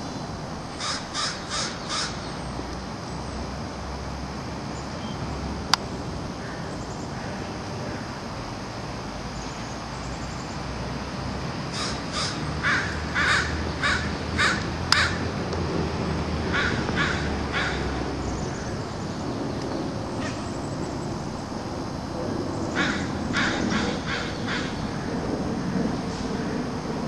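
Crows cawing in quick runs of short caws: about four a second in, a longer run of about seven near the middle, then shorter runs later, over a steady low background rumble. A single sharp click about six seconds in.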